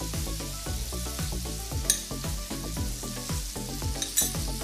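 Oil sizzling in a frying pan around stuffed ridge gourds as ground spice powder is spooned over them, with a couple of sharp clicks from the spoon and pan.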